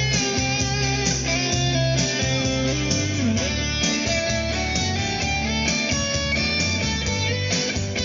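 Instrumental guitar music with a steady bass line and no singing: an instrumental break in a live gospel song.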